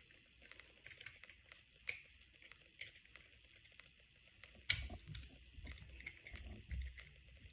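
Faint, scattered small clicks and ticks of a precision screwdriver and small tools working the tiny screws and parts inside an iPhone, with one sharper click a little under five seconds in followed by a low rumble of handling.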